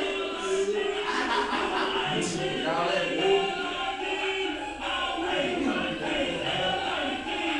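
Music with singing, a song playing for the dancer.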